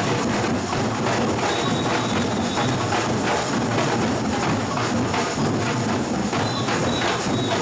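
A batucada, a Brazilian samba percussion band, playing a dense, steady drum rhythm.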